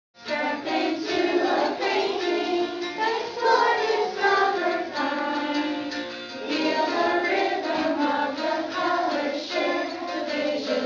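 Music with a group of voices singing a song, starting suddenly from silence right at the outset.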